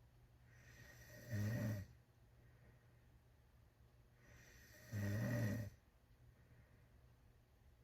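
A teenager snoring loudly with the mouth wide open: two low buzzing snores about three and a half seconds apart, each under a second long and led in by a softer breath.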